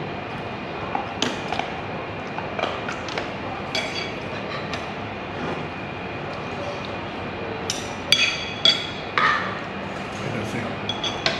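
Metal cutlery clinking and scraping against an iron skillet plate and a ceramic plate as people eat, with a quick run of louder clinks about eight to nine seconds in.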